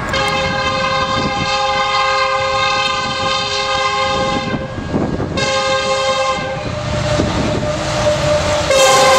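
Approaching train sounding its multi-tone air horn for a road crossing: a long blast, a short one, then another long blast starting near the end, over the low rumble of the train on the rails.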